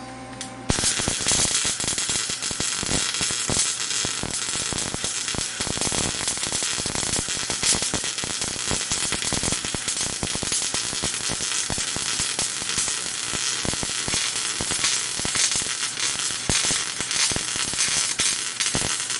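Gas-shielded MIG welder arc crackling and sizzling steadily while a weld is run on a cracked steel snowmobile chassis. It starts just under a second in and stops near the end. With the shielding gas turned on, this steady crackle is the sound of a good weld, though the heat is high enough that it blows through the thin metal a little.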